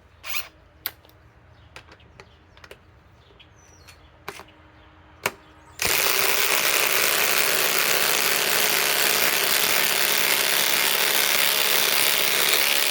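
A few sharp clicks, then about six seconds in a cordless impact wrench starts hammering continuously, driving a 6-inch power lag screw, and runs steadily for about seven seconds.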